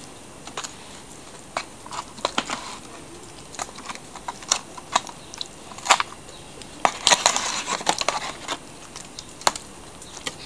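Metal spoon scraping and clicking against a disposable aluminium foil baking tray, the foil crinkling, as roasted vegetables are moved on top of chicken pieces. Sharp clicks come at irregular intervals, with a busier stretch of scraping about seven seconds in.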